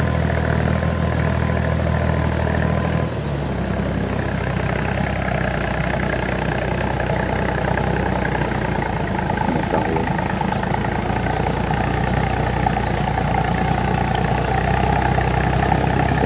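Iseki 3510 tractor's diesel engine running steadily under load as it drags cage wheels and a levelling board through a flooded rice paddy. The engine note changes about three seconds in.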